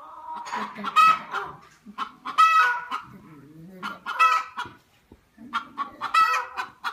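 Chickens clucking and calling, with a loud, pitched squawk every second or two.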